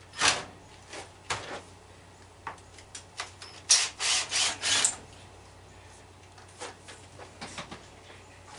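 Short scraping and rubbing noises from hand work on an electric scooter's battery deck with a cordless drill, with a cluster of louder scrapes about four seconds in, then a few faint knocks near the end.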